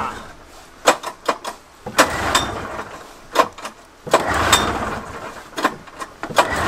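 Recoil starter of a 1979 Polaris Cobra 440 snowmobile pulled twice, about two seconds apart, the two-stroke engine turning over without firing. Several sharp clacks come before and between the pulls.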